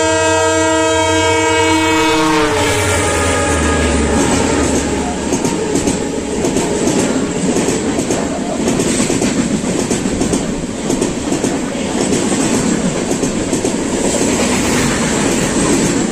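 A diesel locomotive's horn blares as it approaches on the adjacent track, dropping in pitch and cutting off as it passes about two and a half seconds in. Its passenger coaches then rush past close by, wheels clattering over the rail joints.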